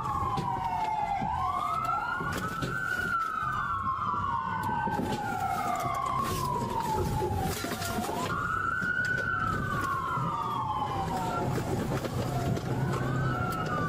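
Police car siren wailing in a slow rise and fall that repeats about every three seconds, at times with two wails overlapping, over steady road and engine rumble.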